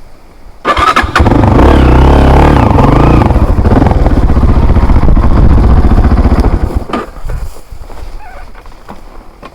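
An engine running loud and close, starting abruptly about a second in and fading away after about seven seconds.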